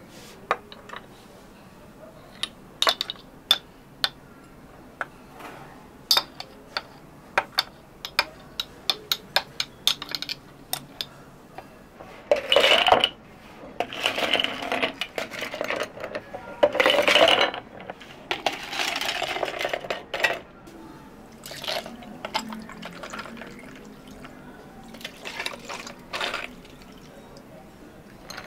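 Drink preparation at a cafe counter: a quick run of sharp clinks and taps of hard objects against cups and utensils, then liquid poured in four spells in the second half, followed by a few more light taps.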